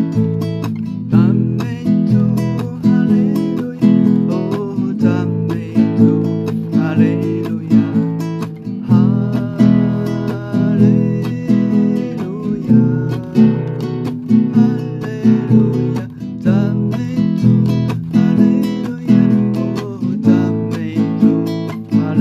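Acoustic guitar strummed in a steady rhythm, playing a hymn's chords.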